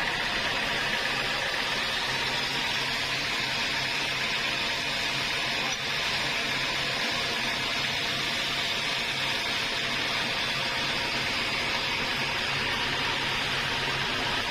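Sawmill machinery running steadily: a constant mechanical hum with a hiss over it, no sudden changes.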